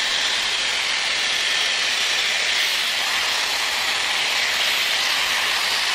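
Dyson Airwrap hair styler with a round brush attachment blowing air through hair, a steady airy rush with no change in pitch or level.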